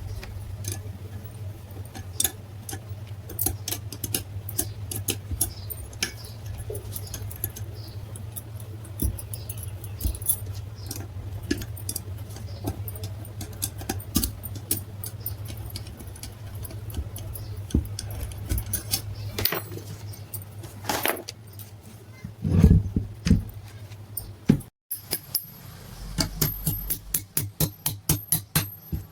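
Repeated light metallic clinks and taps of small metal parts and tools being handled, over a steady low hum. The clicks come thicker and louder in the last few seconds.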